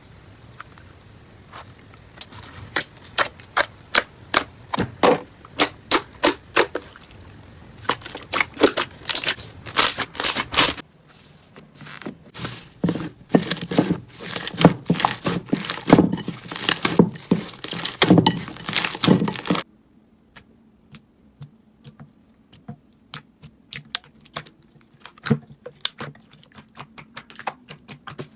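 Slime being pressed and squeezed by hand, making quick runs of sharp clicking and crackling pops. The sound changes abruptly twice, about a third and two-thirds of the way in, and the last part is quieter with sparser clicks.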